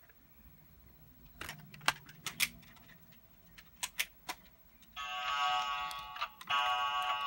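A few sharp plastic clicks and knocks as Kamen Rider Ghost DX toys are handled. About five seconds in, a toy starts playing electronic music and sound effects, breaks off briefly, then starts again louder.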